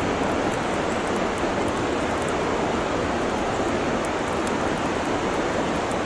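Steady rush of a large waterfall: an even, unbroken noise of falling water.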